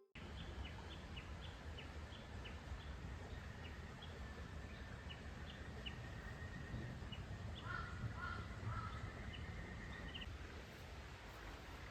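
Wild birds calling. Short high chirps repeat about twice a second over a thin steady high trill. About eight seconds in, a lower call sounds several times in quick succession. A low outdoor rumble runs underneath.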